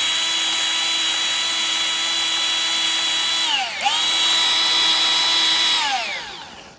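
Battery-powered grease gun's electric motor whining steadily as it pumps grease into a water-filled air tank to build pressure for a hydrostatic test. The motor winds down a little over three seconds in, starts again at once, and winds down to a stop near the end.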